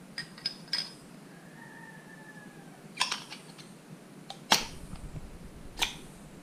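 Clicks and sharp knocks from a Fox Float X2 rear shock being handled as its air sleeve is slid back onto the damper body, the sharpest knock about four and a half seconds in. A faint drawn-out squeak sounds between about one and a half and two and a half seconds in.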